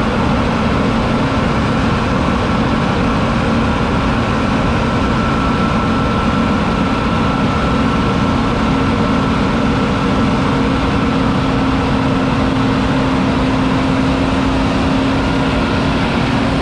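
John Deere 9780i CTS combine harvester running steadily, its 8.1-litre six-cylinder diesel giving an even drone with a steady high whine over it.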